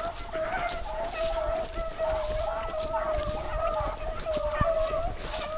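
Hunting hounds baying on a rabbit's trail, a steady, wavering chorus of long calls with brief breaks. Dry grass and brush rustle close by as someone walks through it.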